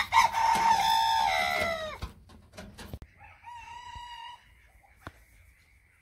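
A rooster crows once, loud, its long last note sliding down in pitch, and a quieter call follows a second later.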